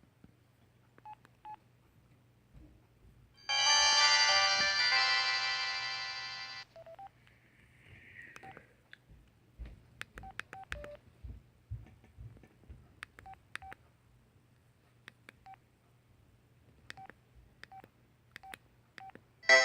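LG flip phone's keypad beeping as its buttons are pressed, each short beep paired with a small click. About three and a half seconds in, the phone's speaker plays a loud electronic jingle of several tones that fades out over about three seconds.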